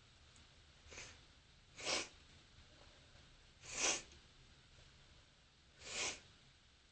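A person sneezing three times, harsh sneezes about two seconds apart, with a fainter sound about a second in. The sneezer has bronchitis, by the uploader's account.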